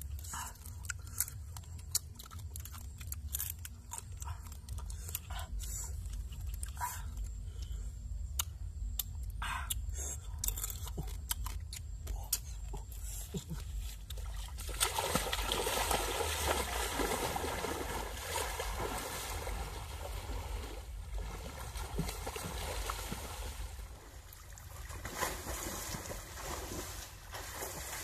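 Scattered small cracks and clicks of cooked crab shells being picked apart and chewed. About halfway through, steady splashing of water takes over as people swim and thrash in a lake.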